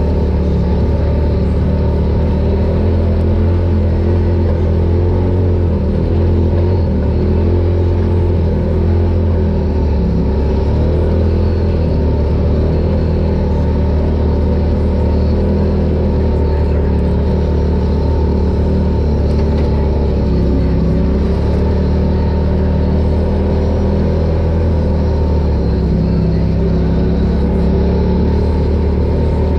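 Side-by-side UTV engine running steadily under way on an off-road trail, a constant low rumble with no big swings in speed.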